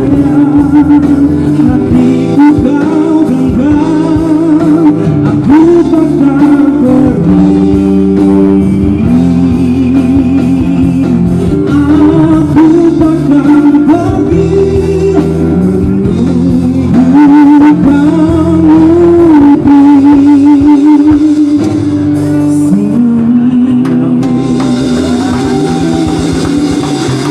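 A male vocalist singing a slow pop ballad with held, wavering notes, backed by a live band of electric and acoustic guitars.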